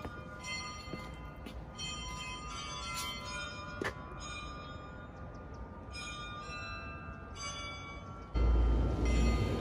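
Church bells ringing, several bells struck one after another, each ringing on and fading. Near the end a loud low rumble comes in over them.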